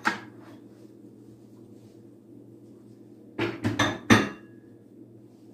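Small bowls, a glass and utensils being set down on a stone countertop with clinks and clatters: one clink right at the start, then a quick run of three or four loud clattering knocks about three and a half seconds in. A steady low hum runs underneath.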